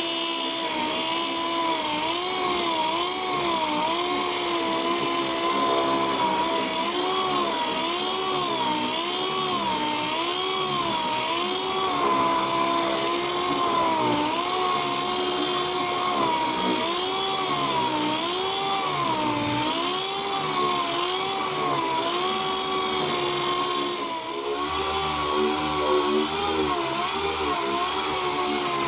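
Pneumatic random-orbital (DA) palm sander block sanding primer surfacer on a car hood. Its whine rises and falls in pitch every second or so over a steady hiss. After a brief dip near the end, the whine holds steadier.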